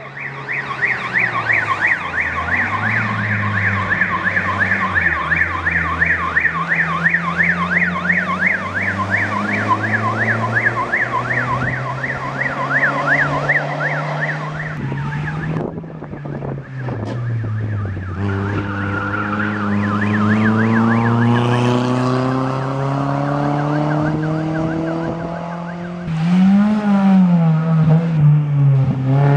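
A fast warbling siren sounds over a vehicle engine for about the first half. It then fades and a rally car's engine approaches, rising in pitch as it accelerates, then revving up and down as the car passes near the end.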